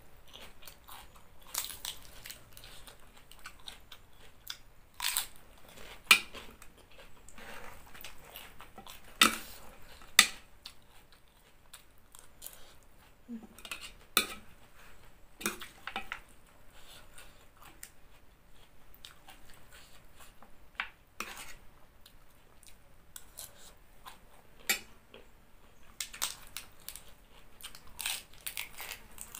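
Close-up chewing and crunching of crisp raw food, green papaya salad and lettuce, with sharp crunches every few seconds and a run of them near the end.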